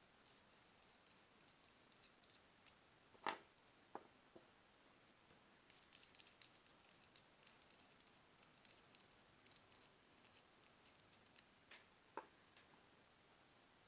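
Faint sounds of hands handling packaging and parts: a light knock about three seconds in, a run of quick crackling clicks soon after, and another knock near the end.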